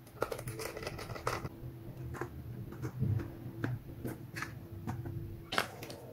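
Irregular clicks, taps and rustles of a JBL Charge 3 portable speaker's plastic housing and fabric-covered shell being handled and refitted by hand, with a sharper click about five and a half seconds in.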